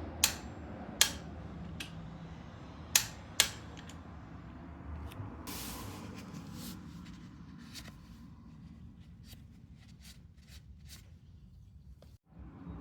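Hand tools and parts clicking and knocking: four sharp clicks in the first few seconds, a short hiss about five and a half seconds in, then lighter scattered ticks over a low hum.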